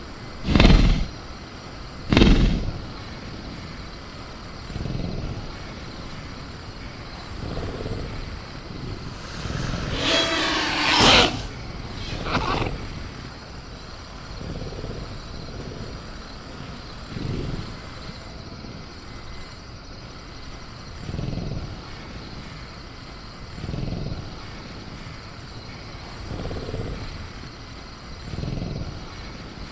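Sound-effect velociraptor in a cage: two sharp bangs of the cage being rattled near the start, a louder screeching call about ten seconds in, and low animal grunts every two or three seconds. Soft crickets run steadily underneath.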